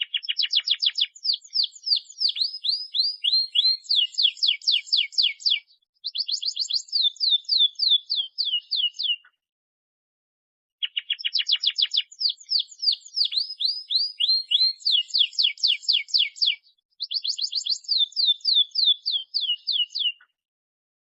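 Domestic canary singing in full song: rapid trills of quick down-slurred notes, changing from one trill to the next. It sings in two runs of about nine seconds each, with a short silent gap about nine seconds in, and the second run repeats the first.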